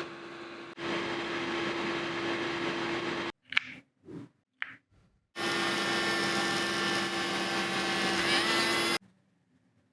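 A small electric motor whirring steadily in two spells, with a few short clicks and knocks in the gap between them. The second spell cuts off suddenly near the end.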